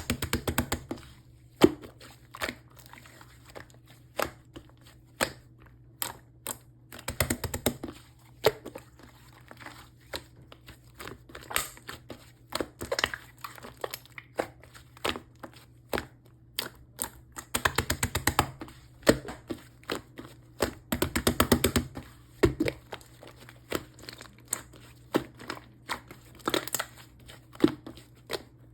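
Yellow marbled slime with clay on top being squished and pressed by hand, giving sharp clicking and popping sounds. Several quicker runs of crackling pops come now and then, the longest about two-thirds of the way through.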